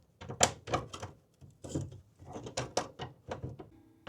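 Irregular clicks and knocks of garage door roller hardware being fitted back in place, as the bracket and bolts for a new nylon roller go on by hand.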